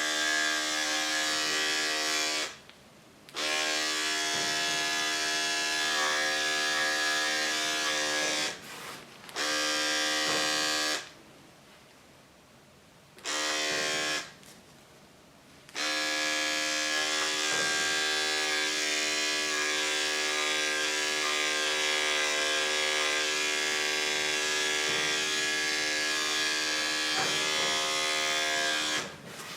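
Electric dog grooming clippers running with a steady hum, switched off and back on four times and stopping near the end.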